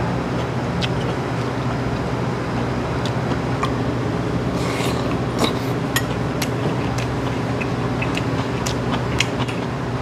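Scattered small clinks and clicks of a spoon against a stainless-steel rice bowl as someone eats, over a steady machine hum.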